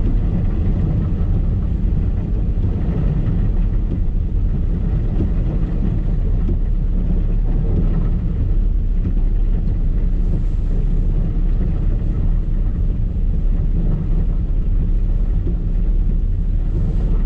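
Steady low rumble of a car being driven, heard from inside the car, with heavy rain noise over it.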